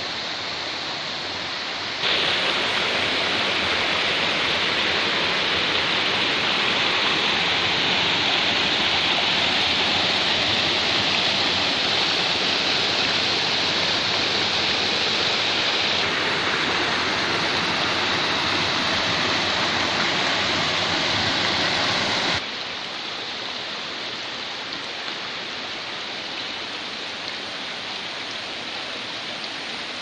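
Stream water rushing over boulders in small cascades, a steady rushing noise. It turns louder about two seconds in and drops back abruptly about three-quarters of the way through.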